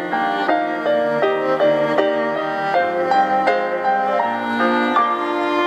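Instrumental passage of a ballad: a violin melody over digital piano accompaniment, with short notes stepping quickly one after another and no singing.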